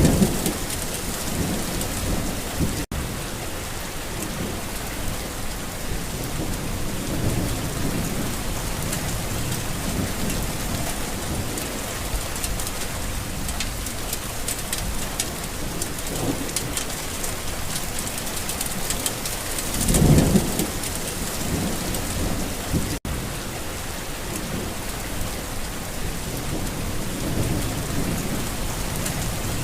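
Steady rain falling, with low rolls of thunder coming and going and the loudest rumble about twenty seconds in. The sound cuts out for an instant twice.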